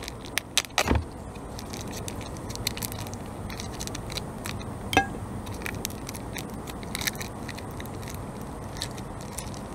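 Plastic vacuum-seal wrapping on a chorizo being slit with a knife and peeled off the sausage: scattered sharp crackles and clicks, loudest in the first second and once about five seconds in, over a steady low hiss.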